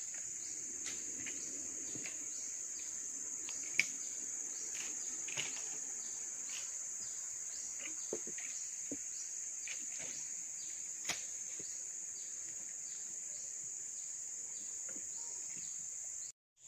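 Steady high-pitched drone of an insect chorus, with a few sharp clicks scattered through it, the sharpest about four seconds in.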